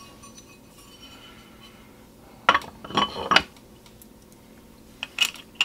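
Aluminium bait-mold plates clinking and knocking against each other and the bench as they are handled: a quick cluster of strokes about two and a half seconds in, and two more near the end.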